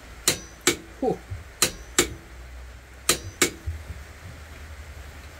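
Click-type torque wrench set at 40 ft-lb, clicking in three pairs of sharp clicks about a second and a half apart as it breaks over on an oil pump drive shaft. Each click marks the set torque being reached, with the shaft holding at 40 ft-lb.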